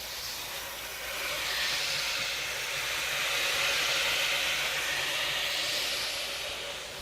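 Hot-water carpet extraction wand on a truck-mount system, hissing as it sucks water from the carpet. The hiss swells from about a second in and eases off near the end, over a faint steady low hum.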